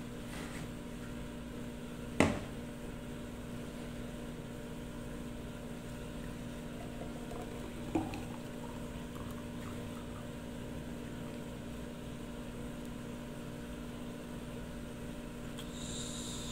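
Thick fruit smoothie poured from a blender jar into a tall glass, the pour faint under a steady low hum. Sharp knocks of glass on the countertop come about two seconds in, more softly near the middle, and loudest right at the end.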